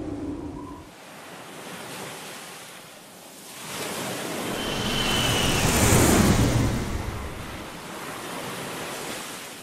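An edited-in sound effect of rushing noise that swells to a peak about six seconds in and then fades, after a smaller swell earlier.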